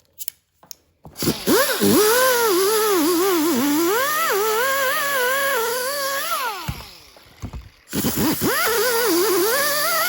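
Electric grinder starting about a second in and grinding cured foam, its whine dipping and wavering as it is pressed into the work. About six seconds in it winds down to a stop, then starts again roughly a second and a half later.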